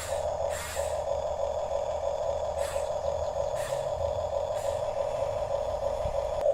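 A remote-controlled toy bulldozer's small electric drive motors and plastic gearbox whirring steadily, with a few short clicks or scrapes from the tracks and mechanism.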